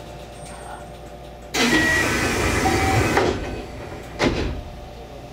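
Compressed air hissing from the stopped 225 series electric train for about a second and a half, then a second, short hiss about a second later, over the steady hum of the cab's equipment.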